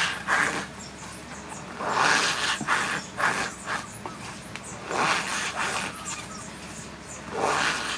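Packed cornstarch squeezed and pressed by hand, giving short squeaky crunches in bursts of a fraction of a second with short pauses between.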